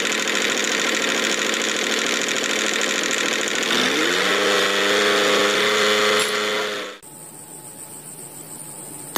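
Small motor of a DIY model tractor running steadily. About four seconds in its pitch rises and settles higher, and about seven seconds in it cuts to a much quieter hum.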